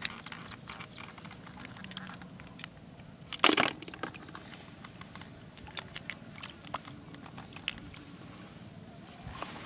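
Close rustling and crackling of grass stems under searching hands, with scattered sharp clicks; one louder rustling burst about three and a half seconds in.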